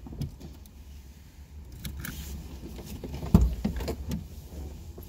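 Handling noises in a car: scattered clicks and rattles and one loud thump about three and a half seconds in, over a low steady rumble.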